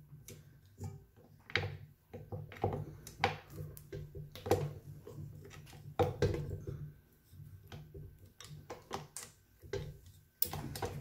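Hands working sticky bread dough off a stand mixer's dough hook in its stainless steel bowl: scattered soft knocks, clicks and bumps against the bowl and mixer head, with a sharper knock near the end.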